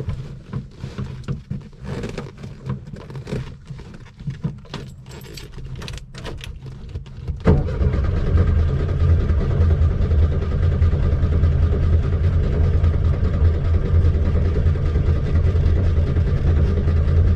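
Light clicks and rattles, then about seven and a half seconds in the 1972 VW Beetle's air-cooled flat-four engine suddenly sets up a loud, steady low drone that keeps going, as the flooded engine is cranked and caught.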